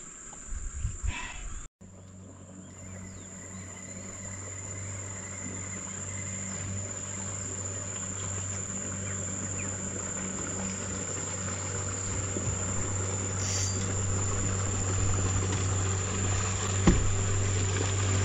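Insects droning in a steady, high, even tone, joined by a low steady hum that grows gradually louder.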